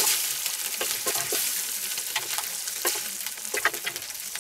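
Diced goulash meat sizzling in a hot cast-iron Dutch oven, with metal tongs clicking and scraping against the pot as the seared pieces are lifted out. The sizzle grows quieter toward the end.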